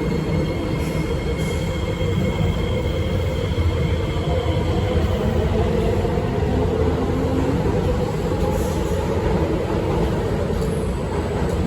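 Kawasaki-CRRC Qingdao Sifang C151A metro train running out of the station, a steady rumble of wheels and running gear with a few faint high tones that fade out about five seconds in.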